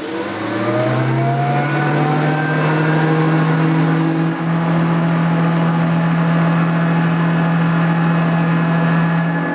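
Nilco 271 commercial upright vacuum cleaner running up to speed after being switched on. Its motor whine rises in pitch over the first two or three seconds, then settles into a steady, loud drone, with a brief dip about four seconds in.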